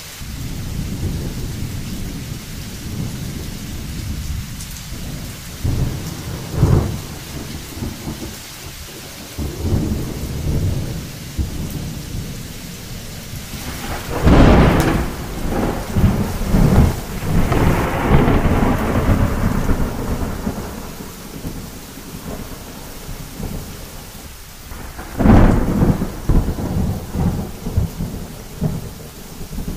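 Heavy rain pouring onto flooded ground during a thunderstorm, with a steady rumble throughout. A loud thunderclap comes about a third of the way in and rolls on for several seconds, and another sharp clap comes near the end.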